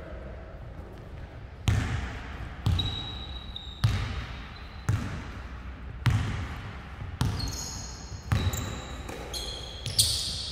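A basketball being dribbled on a hardwood gym floor, about one bounce a second, each bounce echoing through the hall. Short high sneaker squeaks come in near the end.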